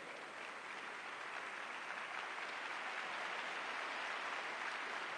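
Arena audience applauding and clapping, fairly quiet and slowly swelling.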